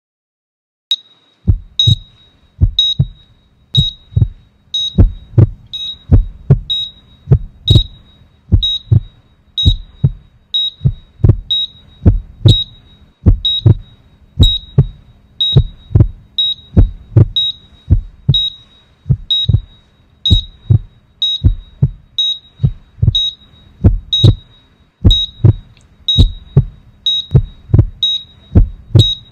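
A short high beep about once a second, each paired with a low thud, in a steady, unbroken rhythm that starts about a second in.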